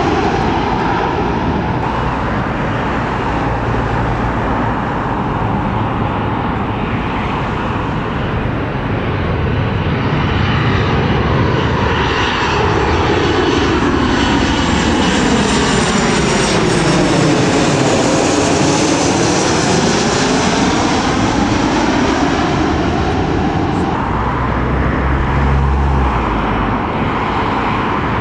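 Airliner flying low overhead, its engines giving a steady noise with a sweeping tone that falls and then rises again as it passes, loudest around the middle.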